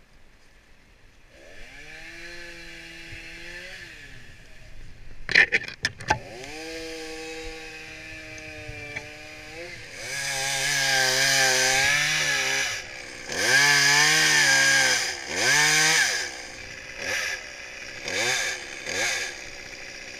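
Chainsaw engine starting up and running steadily, with a few sharp clicks about five seconds in. It is then revved hard in bursts of a few seconds, ending in shorter throttle blips.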